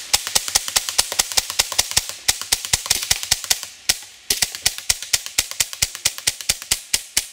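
Gas-powered air rifle firing in rapid automatic strings, about seven sharp cracks a second, with brief breaks about two and four seconds in, stopping near the end.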